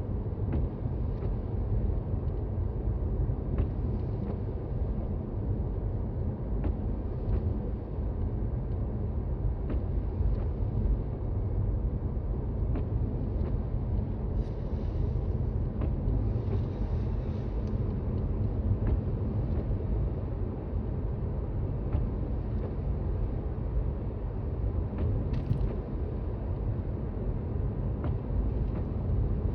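Toyota Raize driving on a snowy road, heard from inside the cabin as a steady low road and tyre rumble with scattered faint ticks and creaks.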